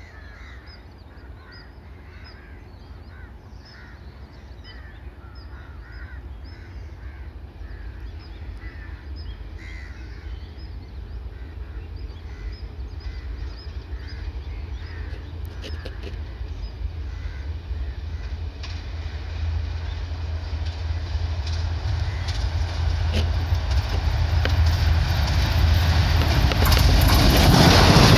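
Twin WDM3D diesel locomotives approaching at the head of a train: a low rumble that grows steadily louder and becomes a loud engine and rail noise as they pass near the end. Birds call repeatedly in the first half, about twice a second.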